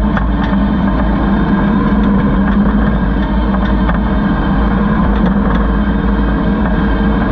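Kubota SVL75 compact track loader's diesel engine running steadily, with a few light clicks over it.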